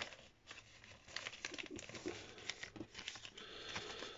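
Folded paper rustling and crinkling in many small, faint, irregular crackles as hands pull open and shape an origami paper boat.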